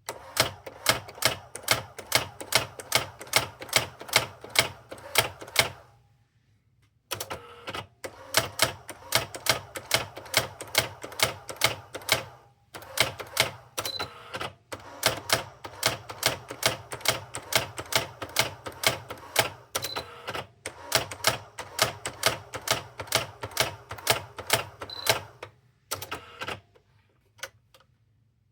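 Brother SX-4000 electronic typewriter printing one key after another: a fast, even run of sharp clicks, about three or four a second, with a pause of a second or so twice. Three short high beeps sound partway through.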